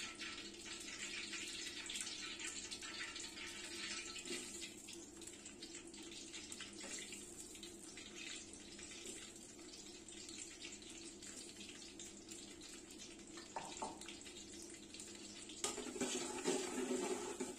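Hot oil sizzling and crackling in an aluminium pot as bay leaves fry; after about four seconds sliced onions go in and the crackle thins to a gentler sizzle. Near the end a spatula stirs the onions, scraping against the pot.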